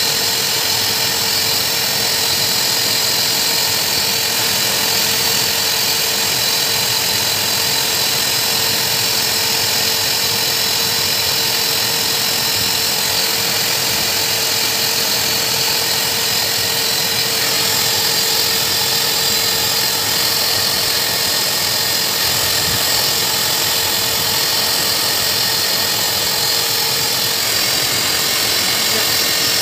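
Hose-type dog blow dryer running steadily, blowing air into a dog's coat: a constant motor whine over a strong rush of air.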